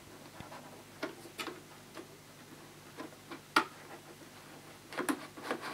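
A vacuum dust bag being worked into a cylinder vacuum's plastic bag holder: a few light, scattered clicks and rustles of the bag's collar and fabric against the plastic, the sharpest a little past halfway.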